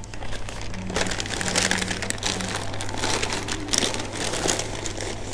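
Brown paper takeaway bag crinkling and rustling as it is handled and packed into an insulated fabric delivery bag, in irregular crackles over a low steady hum.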